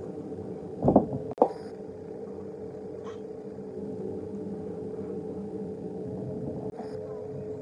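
A steady machine hum with a held pitch, broken by two loud knocks about a second in.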